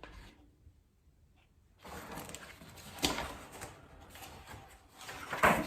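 Picture book being handled and its pages turned: paper rustling, with a sharper flap about three seconds in and another near the end.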